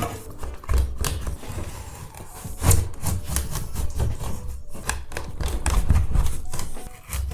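Hand scraper prying and scraping at old ceiling tiles: irregular scrapes, cracks and knocks, with dull thuds.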